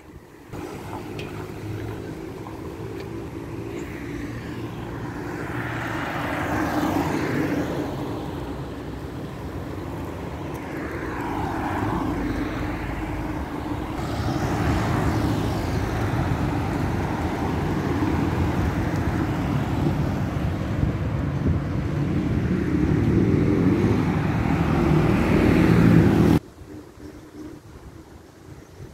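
Street traffic: cars passing on a town road, the noise swelling and fading with each pass over a steady rumble. It cuts off abruptly near the end, leaving quieter background noise.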